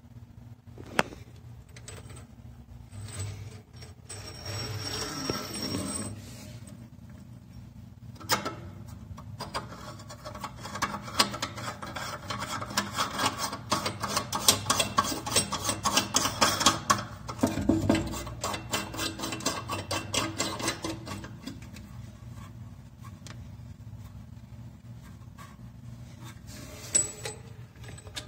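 Braided stainless-steel flexible hoses of a mixer tap rubbing and clicking against the fitting as they are handled and screwed into the tap base: a long run of rapid scraping clicks in the middle, with a sharp knock about a second in and another near the end.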